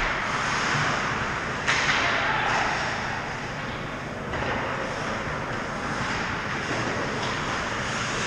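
Ice hockey skates scraping and carving on rink ice, over a steady hiss of rink noise, with a sudden sharp scrape about two seconds in.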